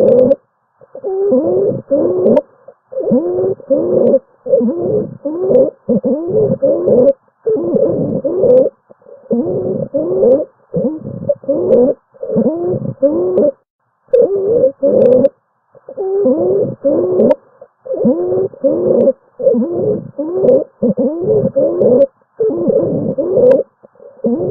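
Stridor: a musical, pitched breath sound repeated about once a second, each breath carrying a tone that bends in pitch. It is the sign of upper airway obstruction or narrowing.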